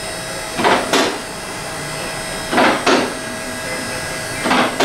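Steady machine hum with several constant tones, broken by a pair of short hissing bursts that repeats about every two seconds.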